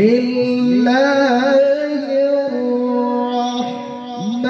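A male qori reciting the Qur'an in the melodic mujawwad style, holding one long sustained note into a handheld microphone, with a short ornamental turn about a second in.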